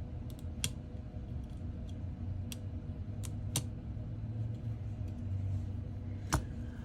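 Small sharp clicks and taps, about five, the loudest near the end, of a prying tool popping the iPhone 14's flex-cable connectors off the logic board, over a steady low hum.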